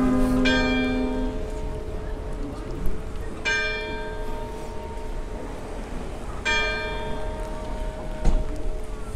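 Church bell tolling: a single stroke about every three seconds, three times, each ringing on and fading away. Lower bell tones from an earlier peal are still dying away at the start.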